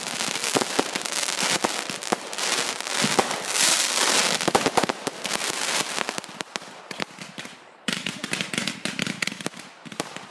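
Fireworks crackling and popping in a dense rapid stream of small bangs over a hiss of burning. The crackle eases off about two-thirds of the way through, then carries on more softly.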